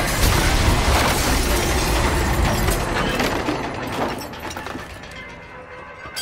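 A loader smashing through a building's front windows and wall: glass shattering and wood splintering, with debris clattering down amid many crashing impacts. The din dies away after about four seconds.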